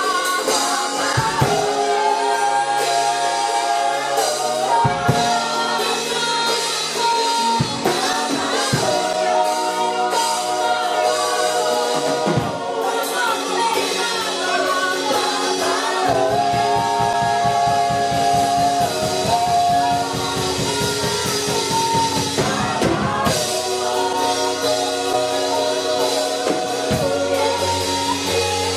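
A gospel worship song performed live: a woman's lead voice sings long held notes over instrumental backing.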